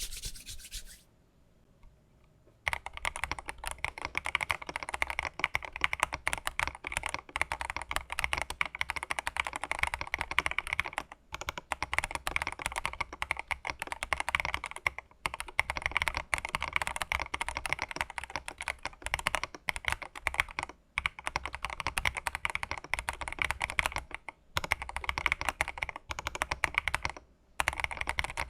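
Mechanical keyboard being typed on in a steady stream of key clicks, starting about two and a half seconds in and pausing briefly a few times.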